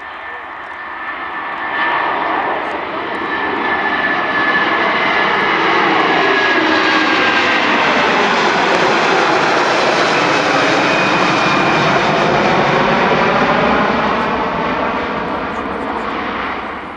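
Airliner passing close by. Its engine noise builds over the first few seconds and stays loud through the middle, with a thin whine that slowly falls in pitch as it goes past.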